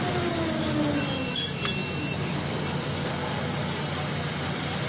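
Airport apron noise with a jet airliner taxiing: a steady engine rumble, a pitched whine that slides down and fades over the first two seconds, and a short sharp hiss about a second and a half in.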